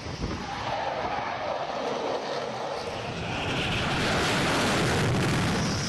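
Jet engine noise of a Dassault Rafale M fighter's twin M88 turbofans on carrier landing approach, swelling steadily as the jet comes in low and passes close by, loudest near the end before cutting off abruptly.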